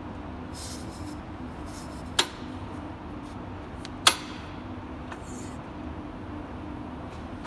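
Cessna 150 propeller and engine being turned over by hand, with two sharp clicks about two seconds apart. A steady hum runs underneath.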